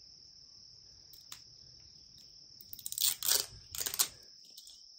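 Insects trilling steadily at one high pitch. A few brief crunching, rustling noises come about three seconds in and again near four seconds.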